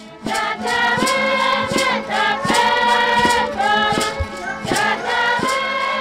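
A group of voices singing together in chorus, holding long wavering notes, over a steady beat that falls about once every 0.7 seconds.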